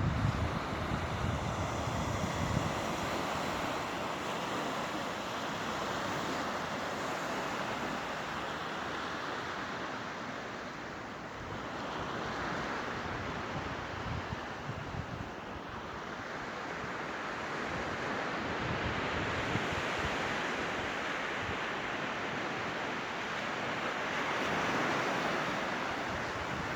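Surf washing in: a steady rush that swells and eases every several seconds, with wind buffeting the microphone near the start.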